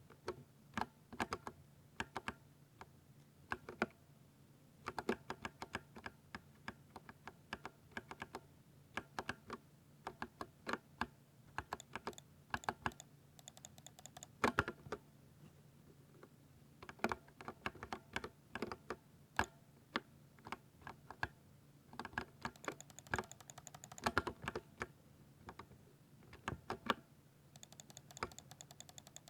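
Thocky mechanical keyboard being typed on in bursts of quick keystrokes separated by short pauses.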